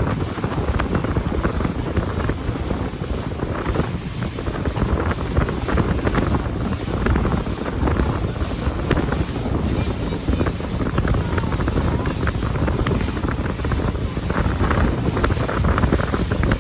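Wind buffeting the microphone on a moving tour boat, over the steady rush of the boat's motor and the water.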